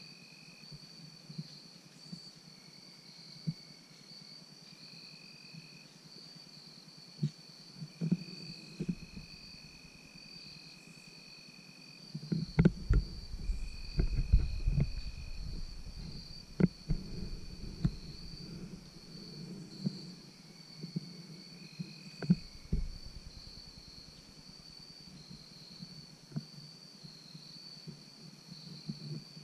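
Insects calling in the woods: a steady high trill throughout, with a second, lower insect call coming and going in stretches of a second or more. From about 12 to 19 seconds, rustling and clicks close to the microphone are louder than the insects.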